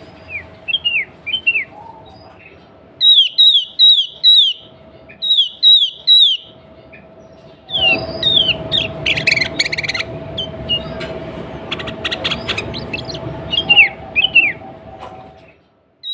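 Sooty-headed bulbul (kutilang) singing: repeated groups of three or four short, downward-slurred whistled notes. A steady low hum runs underneath, and from about eight seconds in a louder rushing background comes in with bouts of rapid clicks.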